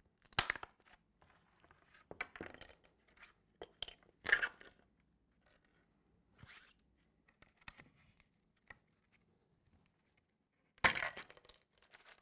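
Peel ply being torn off cured carbon fibre laminate and the stiff, cured parts being prised out of their 3D printed moulds. The result is a handful of short tearing and cracking noises, loudest just after the start, about four seconds in and near the end, with quieter rustling between.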